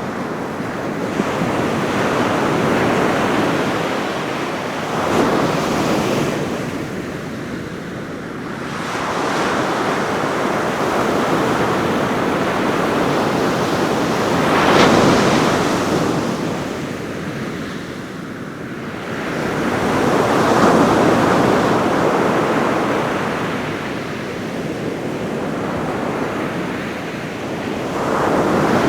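Ocean surf breaking on a beach in successive swells, each wave rising and washing out over several seconds, one crashing a little louder about halfway through. Wind is on the microphone throughout.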